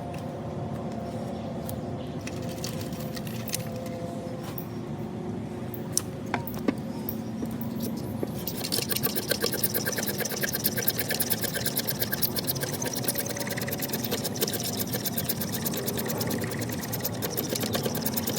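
Stanley 10-049 pocket knife scraping a fatwood pine knot in fast, even strokes, which start about halfway through, shaving off tinder for a ferro-rod fire. Before that there is a low steady hum with a few light taps.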